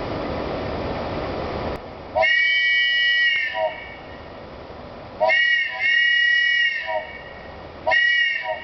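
Wooden multi-chambered train whistle blown hard with none of its finger holes covered, giving a loud chord of several high tones. It sounds three times: two long blasts of about a second and a half each, then a short one near the end. Each blast bends slightly in pitch as it starts and stops.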